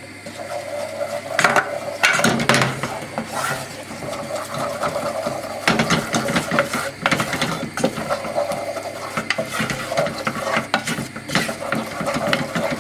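Wooden spoon stirring and scraping a butter-and-flour roux in a metal saucepan, with irregular scrapes and knocks against the pan's sides and bottom as the roux is cooked.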